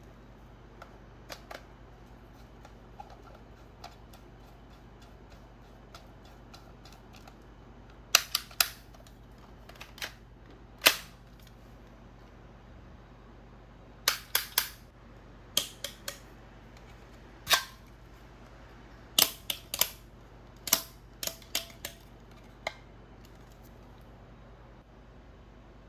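Toy sniper blaster being fired and worked: about twenty sharp, short snaps in irregular clusters, starting about a third of the way in, with a few faint clicks before them. A low steady hum runs underneath.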